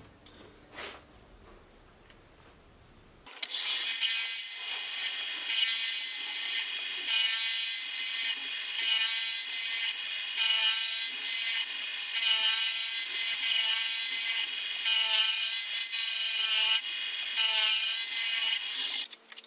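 Milling machine cutter cutting a chamfer across the end of a cold-rolled steel block. After about three seconds of quiet, a steady, high-pitched cutting noise sets in, pulsing about once a second, and stops just before the end.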